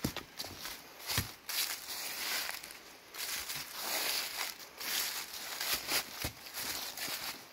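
Footsteps of a person hiking over forest ground at an uneven pace, with scattered crackles underfoot.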